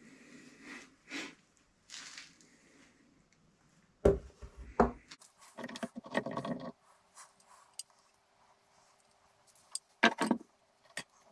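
Metal hand tools handled at a workbench: soft rustling and light clinks, then a few sharp knocks about four seconds in as water-pump pliers are put down on the wooden bench, a short rattling scrape, and a cluster of metallic clanks near the end as a wrench is laid on the bench.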